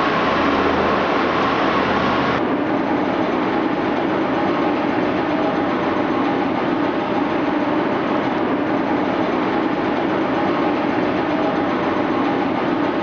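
Steady machinery noise inside a railway tunnel under construction. A low hum cuts off abruptly about two seconds in, and an even, dense rumble carries on.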